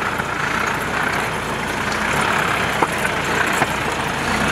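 Force Gurkha's diesel engine running steadily at low revs close by, with a few short clicks over it.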